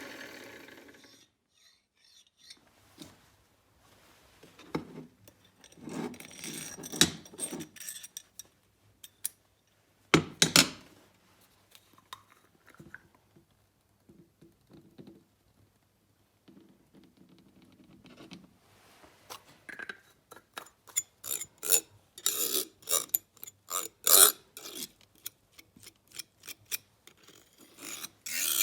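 Steel parts of a Wilton bench vise being handled and fitted during reassembly: scattered metal clinks, knocks and scrapes, with one sharp knock about ten seconds in, and a busier run of clatter in the last third.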